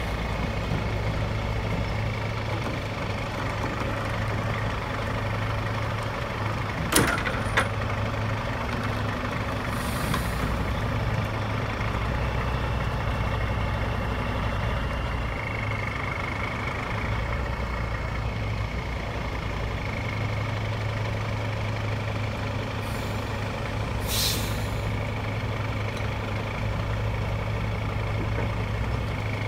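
Heavy diesel engines of tow-truck wreckers running steadily, with a sharp knock about seven seconds in and two short hisses of air, one near ten seconds and one a little after twenty.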